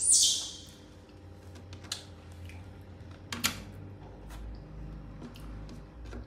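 A baby monkey gives a brief high-pitched squeak at the start, then come scattered light clicks and taps of fruit and a plastic fruit box being handled, with one sharper tap about three and a half seconds in.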